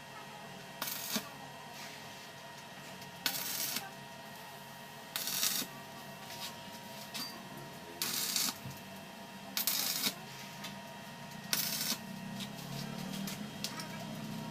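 Stick (shielded metal arc) welding: the electrode arc crackles and hisses in six short bursts of about half a second, a couple of seconds apart, as tack welds are struck along a seam.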